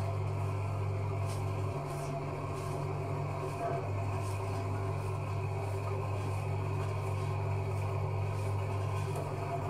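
Commercial spiral dough mixer running with a steady low hum as its hook kneads a large batch of bread dough.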